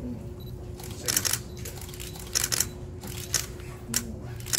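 Camera shutters clicking in several short rapid bursts as photographs are taken, over a steady hum.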